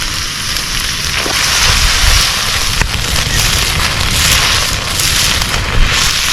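Fried rice sizzling in a pan over a campfire, a steady loud hiss, with wind rumbling on the microphone underneath.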